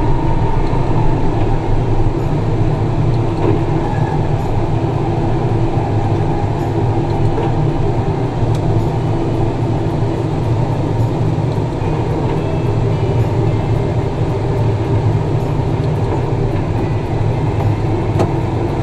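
Tractor engine running steadily under load while pulling a ripper through the ground: a steady low drone.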